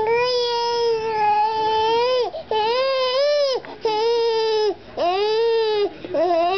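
A baby squealing in a run of long, high-pitched calls: about four drawn-out squeals with short breaths between them, and another starting near the end.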